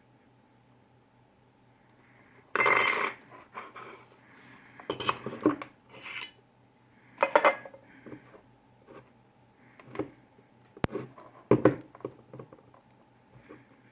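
Metal parts of a soldering-station transformer and its housing clinking, knocking and rattling irregularly as they are handled, with the loudest rattle about two and a half seconds in. A faint steady low hum runs underneath.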